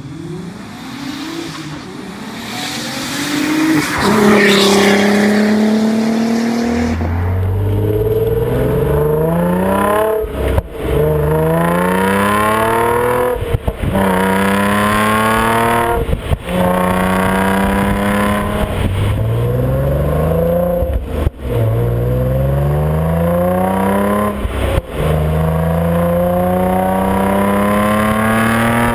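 An Audi B5 S4's twin-turbo V6 passes by, growing louder and then fading. Then an Audi B8.5 S4's supercharged V6 through an APR exhaust is heard close to the tailpipe, pulling hard again and again: the pitch climbs through each pull, and a brief dip between pulls marks each gear change.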